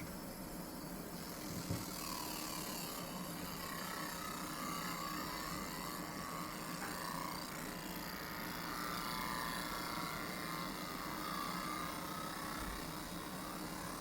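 A 60W mini fiber laser marking machine running steadily, with a faint warbling whine that rises and falls as the scanner traces the cut, and a small click about two seconds in.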